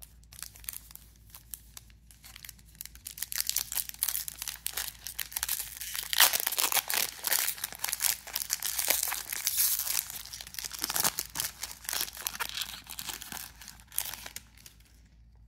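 Foil wrapper of a Topps Chrome trading-card pack crinkling and tearing as it is handled and ripped open. The crackling builds a few seconds in, is loudest in the middle, and stops just before the end.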